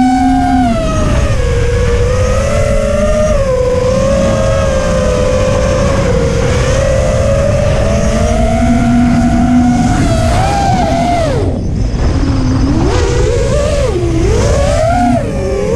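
Brushless motors and 5-inch tri-blade props of an FPV racing quadcopter whining as it flies, the pitch wavering with throttle changes over a low rumble. A bit past the middle the whine drops sharply as the throttle is chopped, then climbs back as it punches out, with another brief dip near the end.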